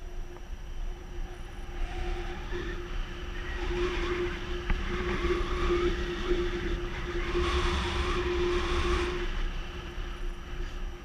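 Wind rushing over the microphone of a pole-mounted camera in paraglider flight, swelling about two seconds in and easing off near the end. A steady low tone runs through the middle.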